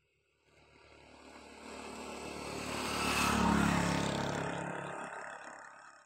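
A motor vehicle passing by: its engine and road noise build up, are loudest about three and a half seconds in, then fade away.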